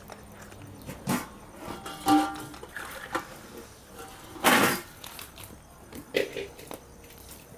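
Aluminium cooking pots and a pressure cooker knocking and clanking as they are handled over a wood fire. There are about five separate knocks; one rings briefly about two seconds in, and the loudest comes about four and a half seconds in.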